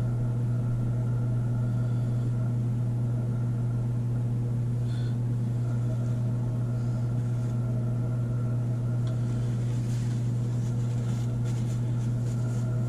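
Steady low hum from a running kitchen appliance, with a few faint handling clicks in the last few seconds.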